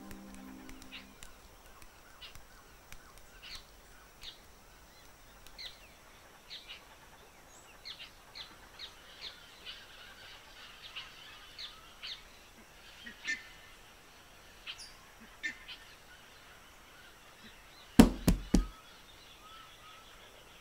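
Birds chirping in short, scattered calls. About eighteen seconds in, three loud knocks on a wooden door.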